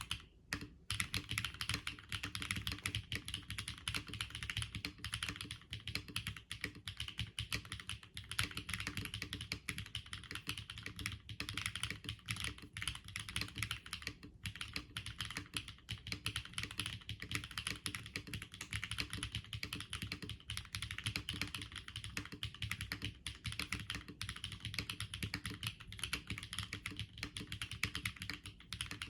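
Mechanical keyboard with stock HMX Xinhai switches, an FR4 plate and double-shot PBT keycaps being typed on: fast, continuous keystrokes, starting about a second in.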